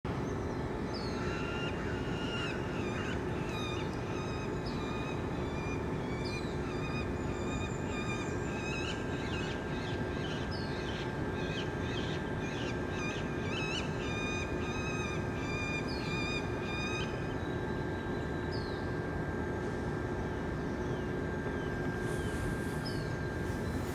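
Birds calling with many short, high, repeated notes in quick runs, which thin out to a few single calls after about seventeen seconds, over a steady background hum.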